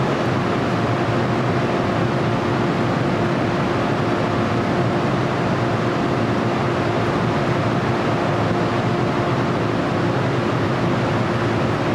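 JR East 103-series electric commuter train standing at the platform with its doors open, its onboard equipment giving a steady hum with a faint steady tone over a constant hiss.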